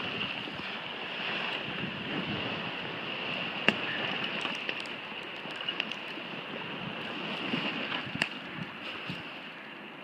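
Blizzard wind rushing steadily across the microphone, with a few sharp clicks, the loudest about a third of the way in.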